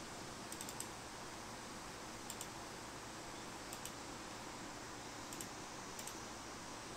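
Faint clicking at a computer: short sharp clicks in quick pairs, with one triple about half a second in, coming every second or two over a steady hiss.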